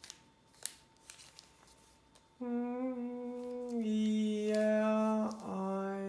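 A person humming a slow tune in long held notes, starting about two and a half seconds in. It is preceded by a few faint clicks.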